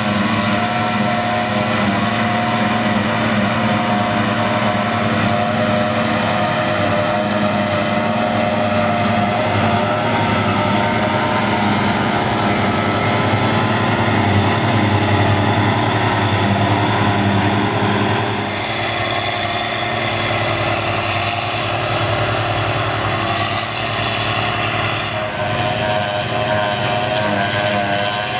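A John Deere self-propelled forage harvester and a Valtra tractor running together while harvesting grass silage: a steady machine drone with several held high tones. The sound changes about two-thirds of the way through.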